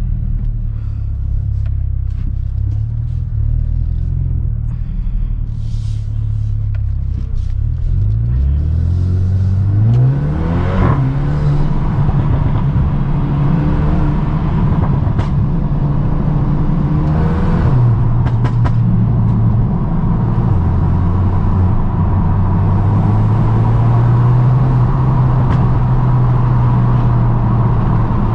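Mercedes-AMG A35 saloon's turbocharged 2.0-litre four-cylinder engine, stage 1 tuned with the rear silencer deleted, heard from inside the cabin: the revs rise in a sweep about ten seconds in and climb again near eighteen seconds, then the engine runs steadily at cruise. A few short sharp cracks sound along the way.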